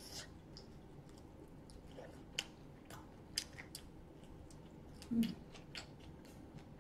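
Quiet chewing and gnawing on a fried chicken leg, with scattered small crisp clicks of biting at the crust and bone. A brief low hum from the eater comes about five seconds in.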